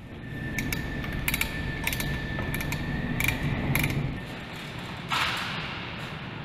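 Wrench clicking and clinking against the metal housing and fittings of an aircraft engine accessory: scattered sharp ticks over a steady low rumble. A faint thin tone runs through the first half, and a short hiss comes about five seconds in.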